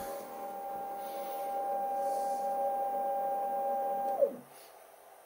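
Stepper motor of a DIY CNC lathe moving the drill in its collet holder up to the workpiece: a steady whine that rises in pitch as the axis speeds up, holds, then falls as it stops about four seconds in, ending with a sharp click.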